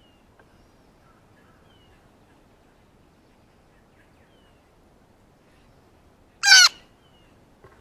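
Blue jay giving one short, loud call about six and a half seconds in. Faint, high chirps sound in the background before it.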